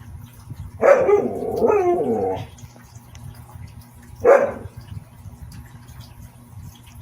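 Siberian husky barking: a bark about a second in that runs on into a drawn-out, wavering call, then a single short bark about four seconds in.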